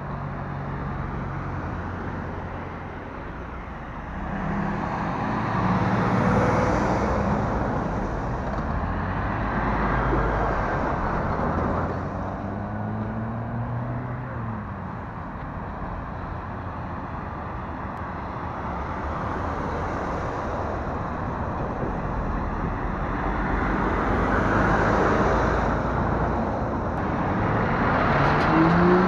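Road traffic: lorries and cars passing, their diesel engines swelling and fading one after another, with one engine note rising and then dropping midway. A lorry passing close near the end is the loudest moment.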